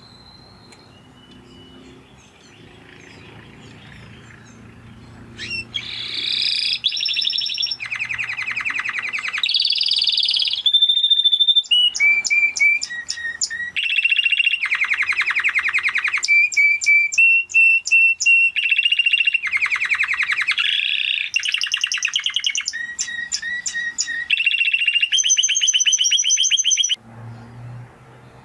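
Spanish Timbrado canary singing: after a few seconds of faint background, a loud song begins, made of rapid rolling trills, held whistled notes and quick runs of sharp clicking notes, then stops suddenly near the end.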